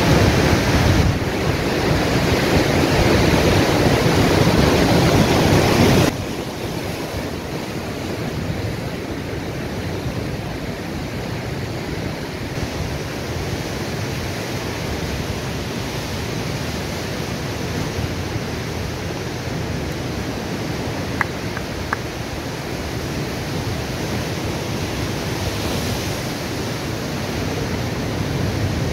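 Ocean surf breaking on rocks, a steady rushing wash with some wind. It is louder for the first six seconds, then drops suddenly to a quieter, even wash.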